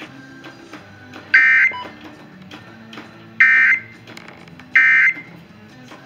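Three short electronic beeps from a NOAA weather alert radio as its buttons are pressed, each about a third of a second long and spaced one to two seconds apart, over faint steady background noise.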